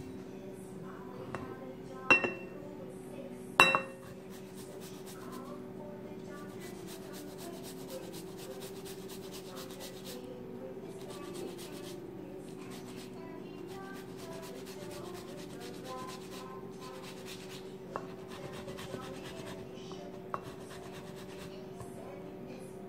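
Lemon rind being grated on a flat handheld grater over a bowl: many quick, fine, scratchy rasping strokes, after two sharp ringing clinks against the bowl about two and three and a half seconds in.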